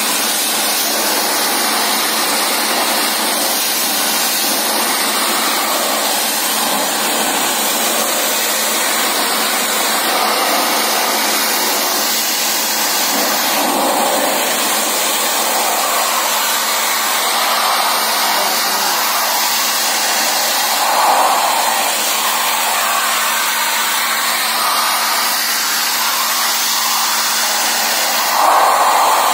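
Pressure washer jet spraying water onto a radiator's fins: a loud, steady hiss, swelling briefly twice as the jet moves over the core.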